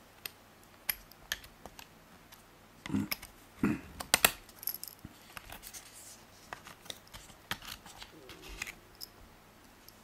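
Small clicks, taps and scrapes of fingers and a plastic pry tool on a laptop RAM module as the SO-DIMM is released and pulled from its slot in a MacBook Pro, with a cluster of louder knocks about three to four seconds in.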